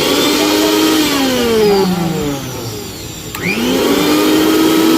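Mixer grinder's universal motor switched on and whining up to speed, then coasting down. About three and a half seconds in it is switched on again and whines back up to full speed.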